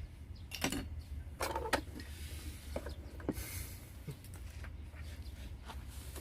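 Several light clicks and knocks, as of cups and coffee gear being handled, over a steady low hum.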